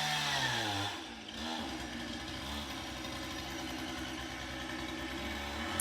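A two-stroke chainsaw engine coming off the throttle, its pitch falling over about the first second, then idling steadily.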